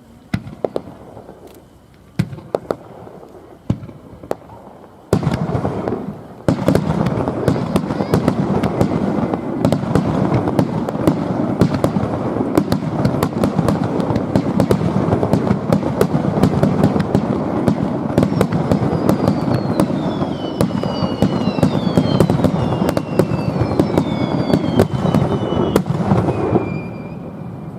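Fireworks display: a few scattered bangs, then from about five seconds in a dense barrage of rapid bangs and crackling that lasts some twenty seconds and stops abruptly. Several falling whistles are heard near the end.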